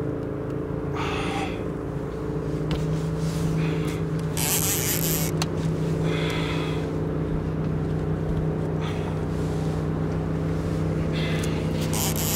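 Boat motor running steadily at an even, low pitch, with short bursts of hiss now and then.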